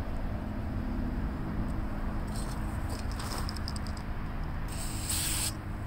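Aerosol can of CRC Freeze Off hissing in a short burst near the end, then starting again, sprayed onto a seized screw to chill and shrink it so the penetrant runs into the threads. A steady low rumble runs underneath.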